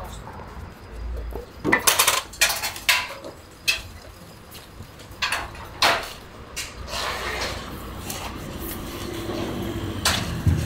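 Scattered light metallic clinks and knocks, a few at a time, from a new Yamaha Tracer 9 motorcycle being taken off its stand and wheeled by hand.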